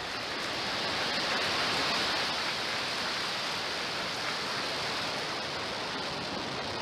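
Falcon 9 first stage's nine Merlin 1D engines at full thrust during liftoff, a dense, steady rushing noise that is loudest about two seconds in.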